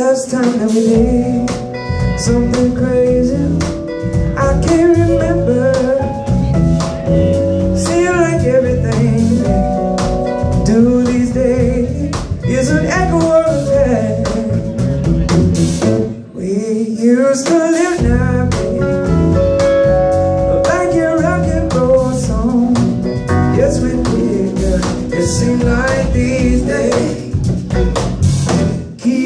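Live rock band playing a song: a male lead vocal sung over electric guitar, a Nord Electro 3 keyboard and drums.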